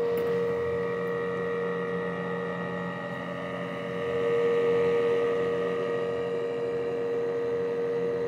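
Exhaust blower with a 3D-printed impeller, driven by a microwave vent-fan motor, running steadily: a constant hum with a clear mid-pitched whine, swelling slightly about four seconds in.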